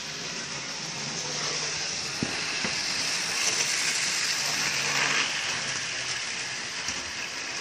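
Model train running on its track: a steady whirring rattle of the small electric locomotive and wagons, with a low hum underneath. Two sharp clicks come about two seconds in, and the sound grows louder around the middle as the train passes close by.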